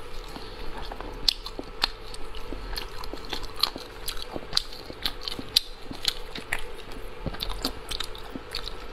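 Close-miked chewing of chewy snail meat: irregular wet mouth clicks and smacks, several a second, over a faint steady hum.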